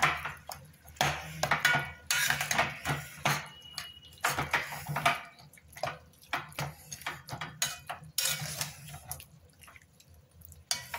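Metal spoon scraping and clanking against a stainless steel pot as chicken pieces in masala, with water just added, are stirred. The strokes come quickly and irregularly, then thin out about nine seconds in.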